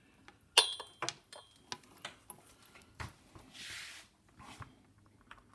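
Clicks, knocks and light clatter of a test cord and its connectors being handled on a bench. A sharp metallic click about half a second in rings briefly, and a short rustle comes near four seconds.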